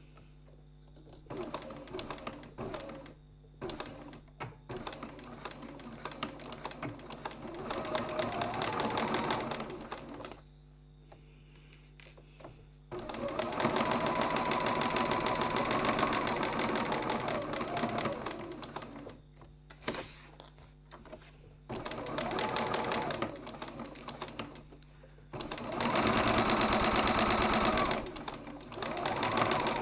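Electric sewing machine stitching in several runs of a few seconds each, with short stops between them. Within the runs the machine speeds up and slows down.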